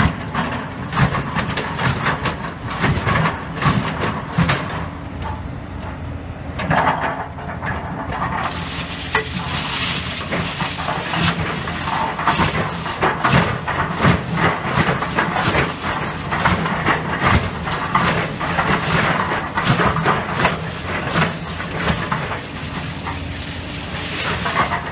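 Hydraulic excavator's diesel engine running steadily under continual clanking, knocking and scraping of concrete rubble and steel reinforcing bar as the bucket digs through and sorts demolition debris.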